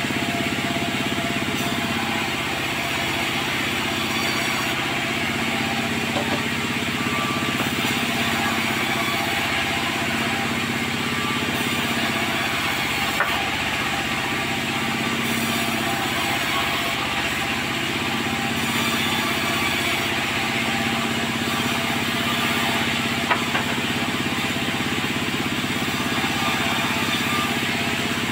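Sawmill machinery running steadily: a constant engine-like drone with a few faint knocks.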